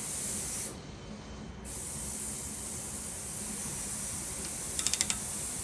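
Steady hiss of shop equipment running, which drops out briefly about a second in. Near the end, a quick run of ratchet clicks from a torque wrench tightening the connecting-rod bolts on a Corvair flat-six engine.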